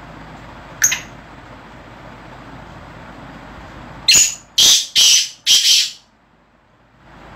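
Male black francolin calling from its cage: one short high note about a second in, then a loud, harsh call of four notes in quick succession, over a steady background hiss.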